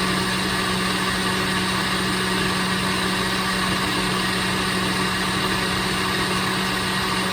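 Countertop blender running steadily at one speed, grinding a smoothie, with a steady motor hum.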